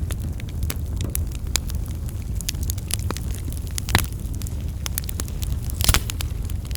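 Wood fire crackling, with irregular sharp snaps over a steady low rumble of flames, and two louder pops about four and six seconds in.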